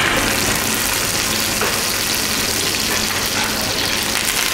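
Venison loin sizzling steadily as it is seared in a hot frying pan.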